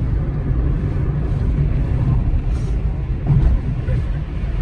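Steady low rumble of road and engine noise inside the cabin of a car driving at highway speed.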